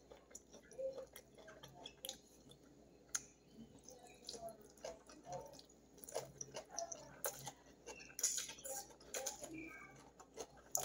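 Faint, scattered wet clicks and smacks of someone eating with their hands: fingers squishing through the food, and lips smacking and chewing, with a few sharper clicks in the second half.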